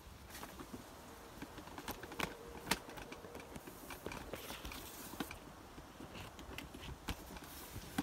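Faint footsteps and rustling among garden plants, with scattered light clicks and crackles, the sharpest one about two and a half seconds in.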